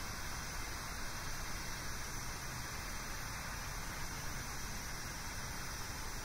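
Steady, even hiss with no beats or distinct sounds standing out.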